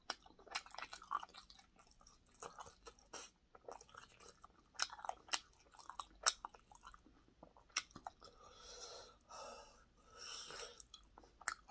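Close-up chewing of fried pork cutlet (donkatsu): a run of wet mouth clicks and light crunches. Two longer breathy hisses come near the end.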